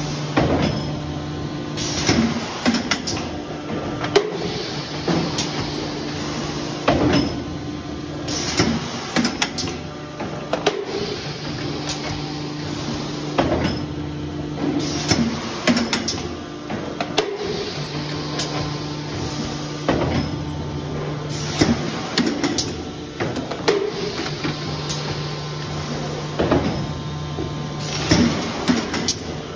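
Industrial plastics press machine cycling automatically: a steady motor hum for a few seconds, then a run of metallic clanks and knocks as it strokes, the pattern repeating every several seconds.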